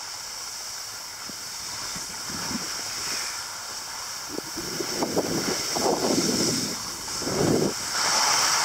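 Wind blowing across the microphone: a steady hiss, with louder low gusts buffeting it through the second half.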